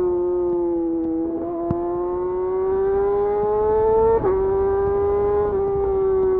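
Yamaha YZF R6 inline-four sport bike through a de-catted Akrapovic slip-on exhaust, running at high revs with a high, siren-like whine. The pitch climbs steadily under acceleration, drops sharply on a quick upshift about four seconds in, then holds.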